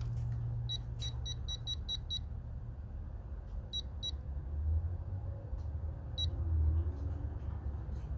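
Digital torque wrench beeping: a quick run of about eight short high beeps in the first two seconds, then a pair and a single beep later, over a low steady hum.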